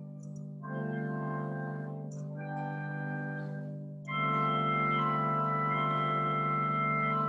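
Organ music: slow, sustained chords, with short breaks between phrases, then a louder, fuller chord held for the last three seconds.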